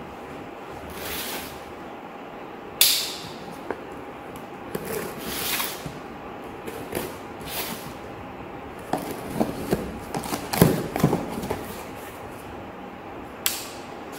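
A cardboard box being opened by hand: a blade slitting the packing tape, tape peeling away and the cardboard flaps rasping and rustling, with a few sharp cracks and small clicks.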